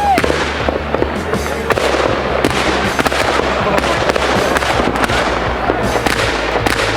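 Fireworks display: a dense, continuous run of bangs and crackles from many shells, with a brief whistle right at the start.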